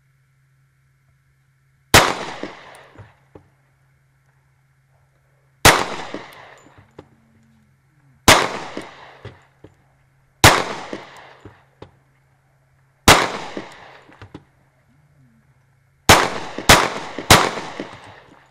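Handgun fired eight times, each shot trailing off in an echo. Five single shots come a few seconds apart, then three quick shots about half a second apart near the end.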